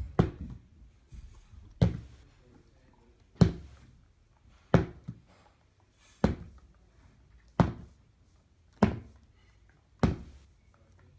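Small plastic toy 8-ball being flipped and landing with a thunk, eight times at about one every second and a half, in attempts to land it upright on its cap.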